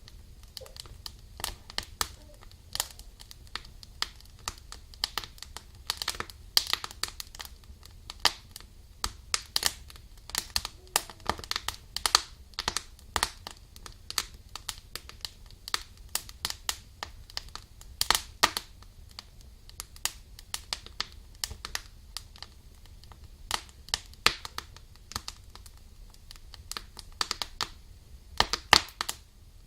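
Balsam fir logs burning in a fireplace, crackling steadily with irregular snaps and pops, a few louder pops standing out.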